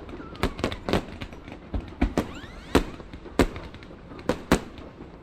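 Fireworks display going off: a quick run of sharp bangs at irregular intervals, with a faint whistling glide about two seconds in.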